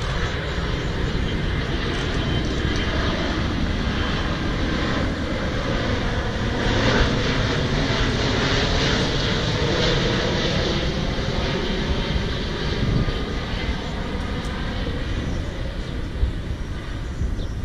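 Airliner flying low overhead on approach to land, its engine noise a steady rush that swells to its loudest around the middle and then eases off.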